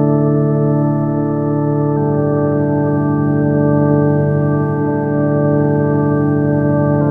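Eurorack modular synthesizer ambient drone (Plaits oscillator through Clouds): a sustained, organ-like chord of steady tones that moves to a new chord about two seconds in and again near the end.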